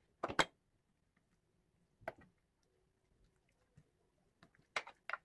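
Sharp clicks and knocks of kitchenware being handled on a stone countertop: a bowl of mustard paste lifted and set down. A double knock comes right at the start, one about two seconds in, and a quick run of three near the end.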